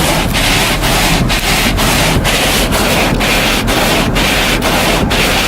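Loud rhythmic rubbing or scraping, about two strokes a second, steady throughout.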